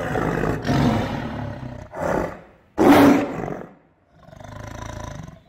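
Animal roar sound effects in a logo sting: four loud roars in quick succession, the loudest about three seconds in, then a quieter rumbling growl that fades near the end.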